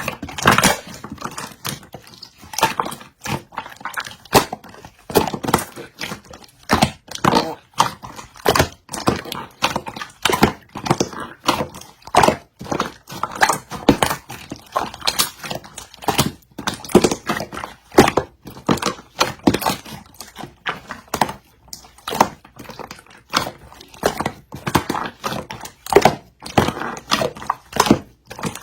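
Stiff slime being squeezed, pressed and pulled by hand, giving repeated bursts of sticky crackling and popping clicks about once a second.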